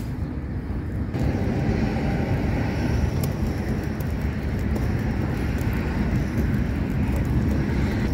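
Wind buffeting the microphone: a steady low rumble that grows louder about a second in.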